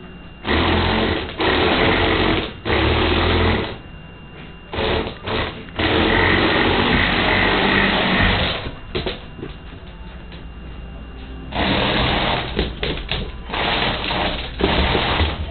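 Electric LEGO Power Functions motors driving a motorized LEGO Crystal Reaper, whirring and grinding through its gears in stop-start bursts of one to three seconds, with a quieter stretch of a couple of seconds after the middle.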